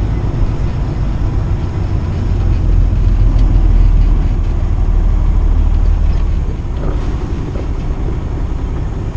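A 2015 Kenworth T680 semi truck's diesel engine running, heard from inside the cab as a deep rumble. It swells for a few seconds in the middle as the truck moves up in line, then drops back about six and a half seconds in.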